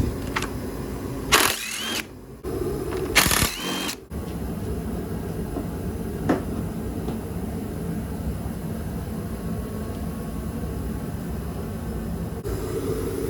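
Two short bursts of a handheld power tool, about a second and a half apart, each with a whine that climbs in pitch as it runs, while the gas tank's mounting bolts are being taken out. A steady low hum runs underneath, with a single light click a few seconds later.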